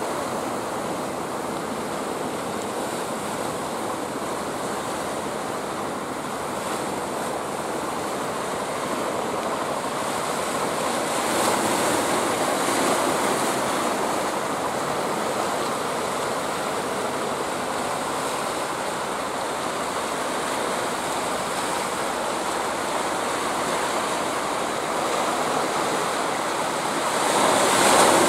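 Surf breaking and washing onto the beach, a steady rushing that swells louder about twelve seconds in and again near the end.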